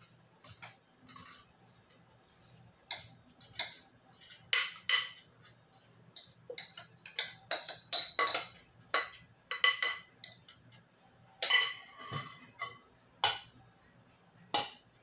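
Irregular clinks, taps and scrapes of a bowl and utensil against an aluminium cuscuzeira as moistened corn flakes are scraped into it, with a few louder knocks near the end.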